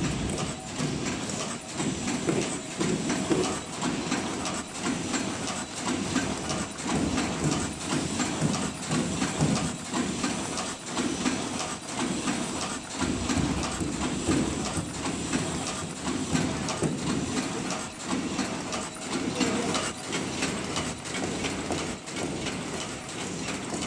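Paper cup forming machine running its test at 60 cups a minute: a continuous rhythmic mechanical clatter of many quick knocks, repeating in a steady cycle.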